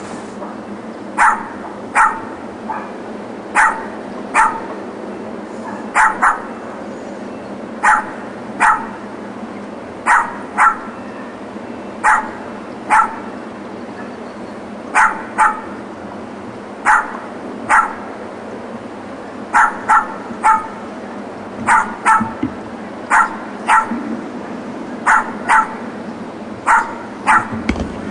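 Small dog, a Yorkshire terrier, yapping over and over: short, sharp, high barks about one a second, often two in quick succession, with no let-up.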